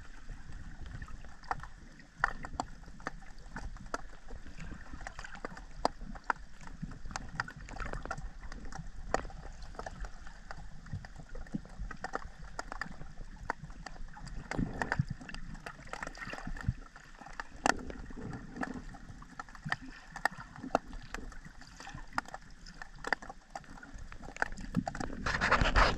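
Underwater sound picked up by a submerged camera: a low rush of moving water with many scattered sharp clicks and crackles, and a louder surge of noise near the end.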